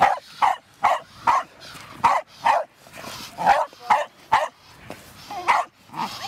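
Dog barking rapidly and repeatedly, about two sharp barks a second, at a helper who teases it with a rag in protection (obrana) training.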